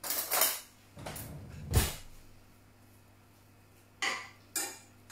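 A utensil scraping through cooked quinoa in a saucepan, with a sharp knock against the pot about two seconds in, then two short scrapes near the end.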